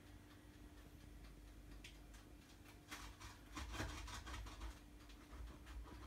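Faint kitchen clatter from pizza being cut with a pizza slicer and a plate being handled: a run of clicks and knocks from about two seconds in, loudest near four seconds, over a faint steady hum.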